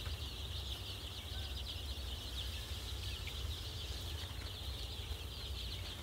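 A flock of 13-day-old Sonali chicks peeping without a break, many short high cheeps overlapping, over a low steady rumble.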